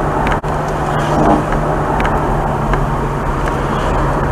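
Ferrari 430 Scuderia's 4.3-litre naturally aspirated V8 running steadily at a constant pitch, with tyre and wind noise, heard from inside the car. The sound drops out briefly about half a second in.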